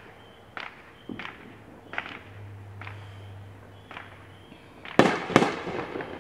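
Two loud fireworks bangs in quick succession about five seconds in, each echoing away, set off by neighbors in the surrounding streets. Before them come faint ticks spaced evenly about every 0.7 s.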